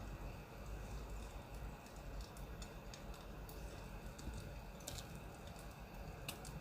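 Wood fire crackling: sparse, sharp little pops over a low steady rumble, with the clearest pops about five seconds in and near the end.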